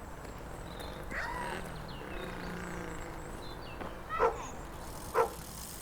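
An animal calling: a softer wavering call about a second in, then two short, loud calls about a second apart near the end, each falling in pitch.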